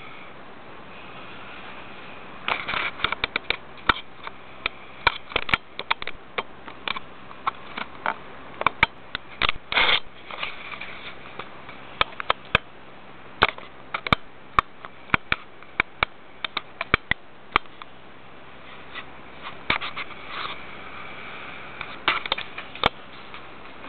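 Irregular sharp clicks and crackles over a steady hiss, with a denser cluster near 10 seconds in.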